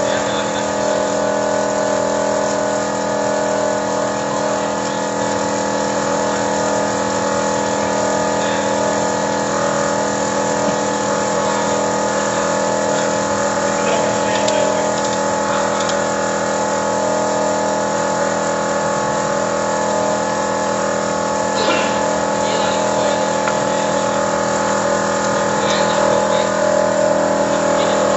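Toyota Innova engine running steadily at idle during a carbon-cleaning treatment, with an even, unchanging note.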